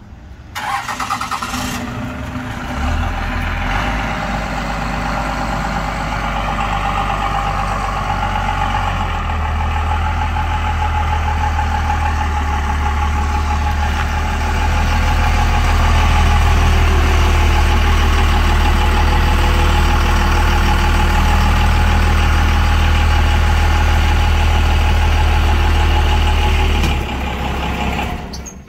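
Vehicle engine running steadily with a deep rumble. It starts about half a second in, gets louder about halfway through, and cuts off suddenly near the end.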